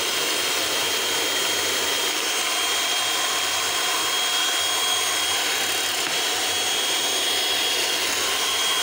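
Electric hand mixer running steadily, its twin beaters whisking beaten eggs and oil in a glass bowl, with a thin high whine over an even motor whirr.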